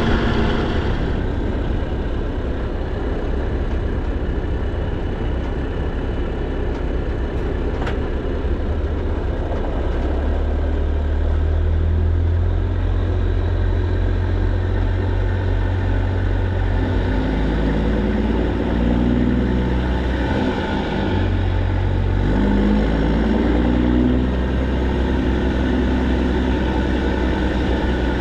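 Straight-piped PACCAR MX13 diesel of a semi truck with its emissions equipment fully deleted, running steadily. Its note steps up and down several times in the second half.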